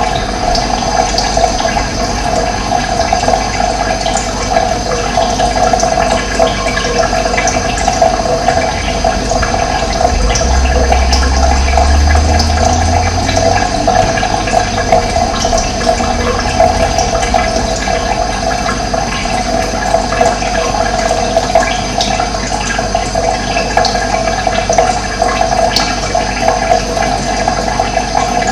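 Running water flowing steadily, an even rushing sound. A low rumble joins it for a few seconds in the middle.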